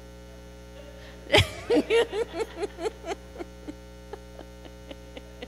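Laughter breaks out about a second and a half in: a run of quick pitched 'ha's that die away over about three seconds, over a steady electrical mains hum.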